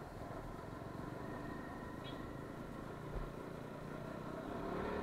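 Motorcycle engine running as the bike rides along at low speed, getting a little louder near the end.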